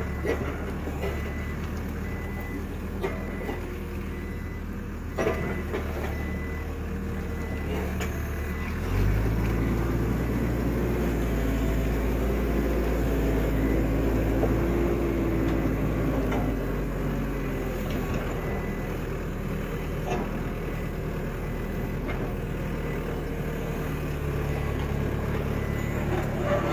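Engine running steadily, picking up load and revving higher about nine seconds in for several seconds before settling back to a lower hum. Faint high beeping repeats over it, and there are a few sharp knocks.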